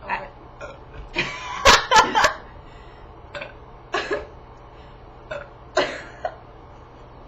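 A person's short coughs and throat-clearing sounds, about eight separate ones, the loudest cluster about two seconds in.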